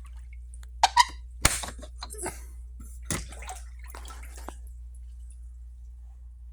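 Water in a flooded basement splashing and sloshing, with sharp splashes about a second in and again around three seconds, over a steady low hum.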